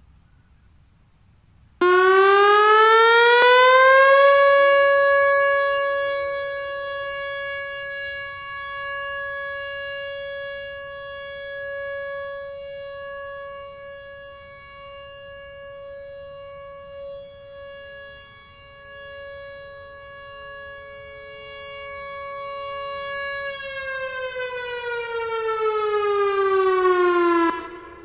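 Whelen WPS-3000 electronic outdoor warning siren sounding a 20-second steady alert in a test. The tone starts suddenly and rises in pitch for about two seconds, holds one steady pitch, then falls away over the last few seconds before stopping. Its loudness fades and swells again as the rotating speaker array turns away from the listener and back.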